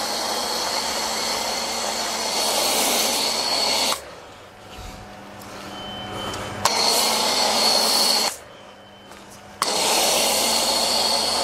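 Pressure washer spraying a steady stream with a thin high whistle. It is cut off abruptly twice as the trigger is let go, once for nearly three seconds and once for just over a second, and starts again suddenly each time.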